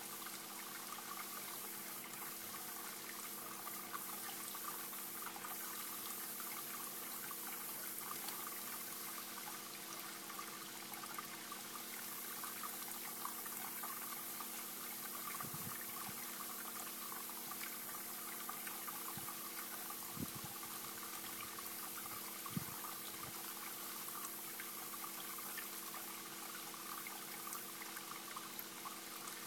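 Steady rushing background noise with a faint steady hum, and a few soft low knocks about halfway through.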